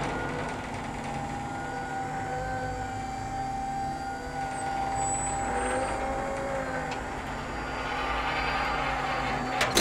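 Motorized wooden lift running with a steady mechanical whirring hum, stopping with a sharp clunk near the end.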